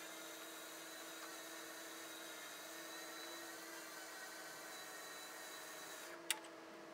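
Rough Country electric winch with synthetic rope running under load, a faint steady whine as it reels in. The whine eases about six seconds in, followed by a single sharp click.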